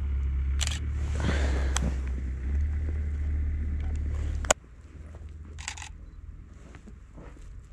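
Wind rumbling on the microphone, ending abruptly with a single sharp click of a camera shutter about four and a half seconds in; after it, a few quieter footsteps crunching in snow.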